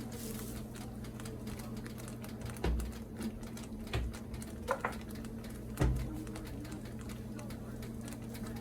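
Spoon stirring gravy in a pan, with fine ticking and scraping and a few knocks of the spoon against the pan, the last one the loudest, over a steady hum.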